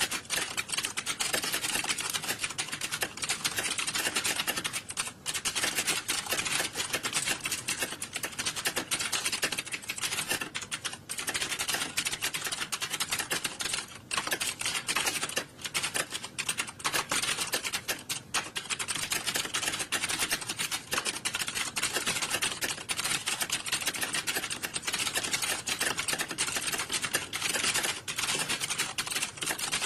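Many computer keyboards being typed on at once: a dense, continuous clatter of key clicks with only brief lulls, like a computer-based exam hall.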